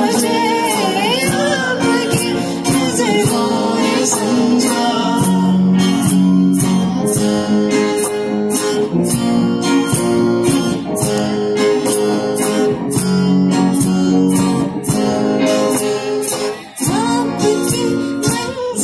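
Live acoustic music: strummed acoustic guitar over a steady percussion beat, with a singing voice in parts. The music briefly drops out about three seconds before the end.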